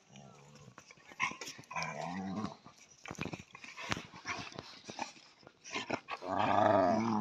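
Dogs play-fighting, with short growls about two seconds in and a longer, louder growl near the end, and scuffling clicks in between.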